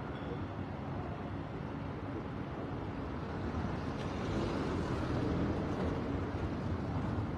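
Steady background rumble and hiss, like distant traffic, growing a little louder about halfway through.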